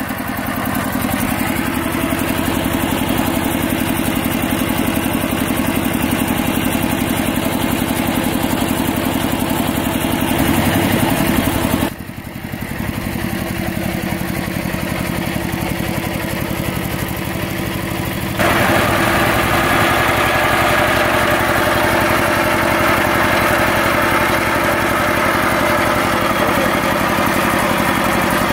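Two-wheel walking tractor's single-cylinder diesel engine running steadily while it pulls a loaded trailer. The sound drops briefly about twelve seconds in, then comes back louder and harsher from about eighteen seconds on.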